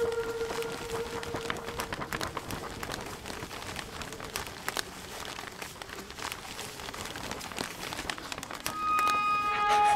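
Soundtrack crackling and rustling, like crumpling paper, full of small scattered clicks. A held musical tone fades out in the first second and a half, and a new steady, horn-like tone with overtones comes in near the end.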